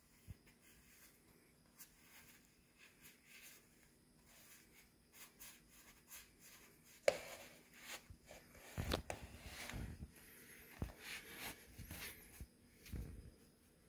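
Faint rustling and rubbing of cotton sock fabric against skin as a sweat-damp white ankle sock is peeled off a foot. The rubbing begins about halfway through, after a single sharp click about seven seconds in.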